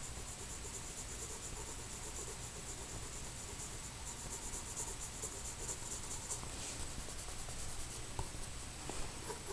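Graphite pencil shading on sketchbook paper: a run of quick, short scratchy strokes laying down fur texture, busiest around the middle.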